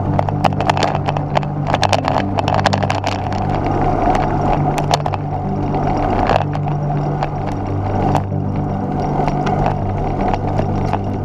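Wind rushing over the microphone and road noise from a bike-mounted camera on a road bike riding a country lane, with scattered knocks and rattles from bumps in the tarmac.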